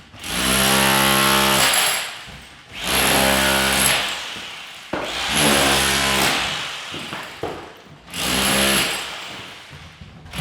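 Demolition hammer chiselling in four bursts of about one and a half seconds each, its rapid blows giving a buzzing rattle, with short pauses between bursts.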